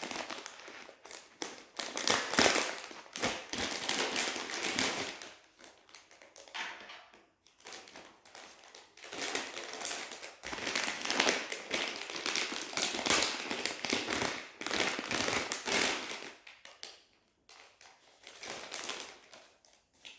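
Plastic zip-lock bags being pulled open and handled, crinkling and rustling in bursts with short pauses.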